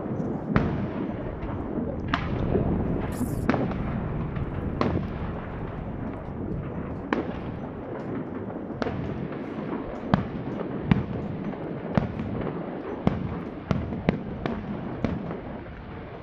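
Distant aerial fireworks going off: about fifteen irregular bangs and pops, a few seconds apart, over a steady low rumble.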